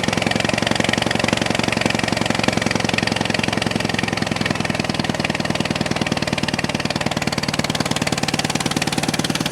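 Old John Deere tractor's four-cylinder gasoline engine running steadily after a start with freshly cleaned spark plugs. The owner says it usually fires on only three cylinders, which he thinks is from too little voltage reaching the coil.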